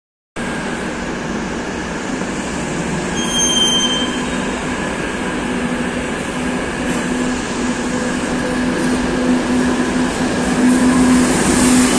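Madrid Metro series 2000B electric train standing at the platform with a steady electrical hum, a single high beep about three seconds in, and the train noise growing louder toward the end as it begins to move off.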